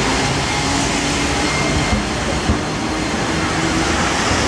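Hiroshima Electric Railway streetcar running past close by, a steady rumble of wheels on rail with a faint hum from its electric drive.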